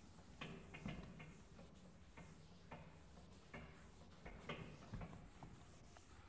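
Faint strokes of a blackboard eraser wiping chalk off a chalkboard, a quick irregular series of short scrapes about two a second.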